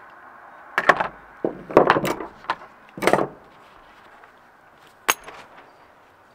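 Knocks and clatters of hand tools (hammer, pliers, screwdriver) against a CV axle joint and being set down on a wooden deck: a cluster of sharp knocks from about one to three seconds in, then one sharp click near five seconds.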